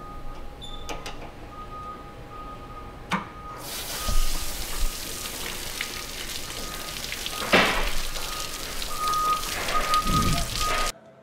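Cooling water spraying in a hissing jet out of a spot welder's water-cooled lower electrode, with louder splashing surges. A sharp knock comes about three seconds in, just before the spray starts about half a second later; the spray cuts off suddenly near the end.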